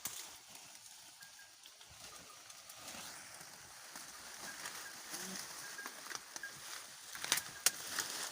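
Leafy branches rustling, building gradually, with three sharp snaps or cracks close together near the end.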